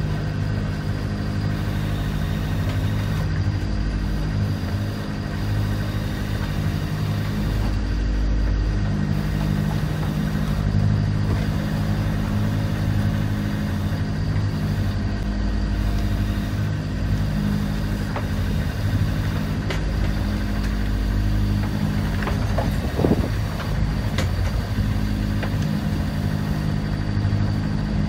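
A sailing yacht's inboard engine running steadily, heard from inside the cabin as a low drone whose pitch shifts slightly now and then. A steady wash of noise lies over it.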